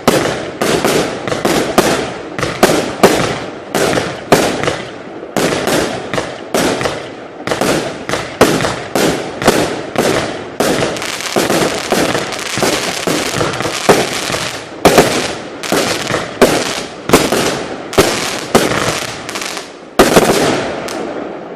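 Compound firework battery (Verbundfeuerwerk) firing shot after shot, about two bangs a second. The run ends with one loud last bang near the end, which then fades away.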